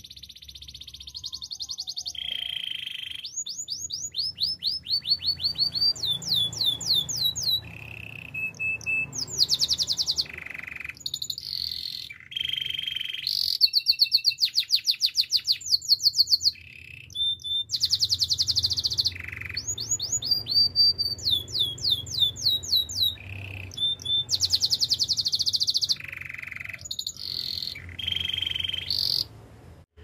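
Domestic canary singing a long, continuous song of rapid trills and repeated phrases, with quick falling sweeps between them, broken only by short pauses.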